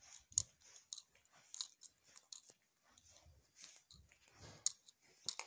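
Quiet walking and handling noise from a hand-held phone: soft footfalls with scattered light clicks and rustles.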